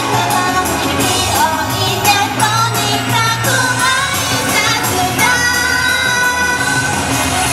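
Two women singing a pop song into microphones over instrumental backing with a steady beat, amplified through PA speakers.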